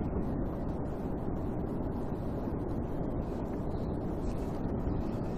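Steady wind buffeting the camera's microphone out on the open water, a constant low rumbling rush with no change in level.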